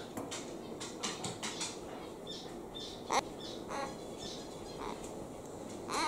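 A young hill myna, about three months old and not yet able to talk, giving a few short calls, the loudest about halfway through.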